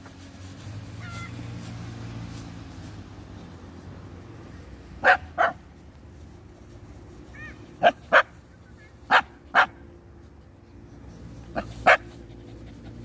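Dogs barking: eight short, sharp barks in four quick pairs, starting about five seconds in.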